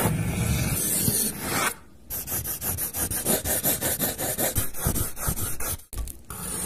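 Pencil scratching on paper, with a fast run of short strokes in the middle. The sound drops out briefly twice, about two and six seconds in.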